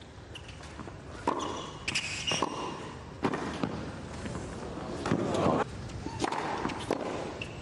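Tennis ball struck by racket strings and bouncing on a hard court during a serve and short rally, heard as scattered sharp pops.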